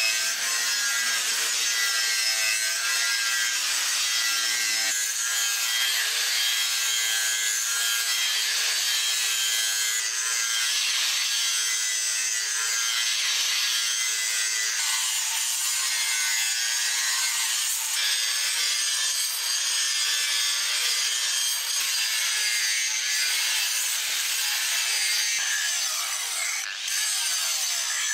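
Angle grinder grinding the edge of a forged steel sword blade: a steady high whine whose pitch wavers as the disc bites into the metal, with a brief dip near the end.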